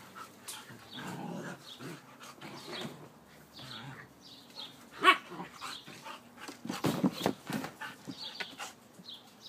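Husky vocalizing in play: one sharp bark about five seconds in and a burst of short barks and grumbles around seven seconds, with softer noises in between.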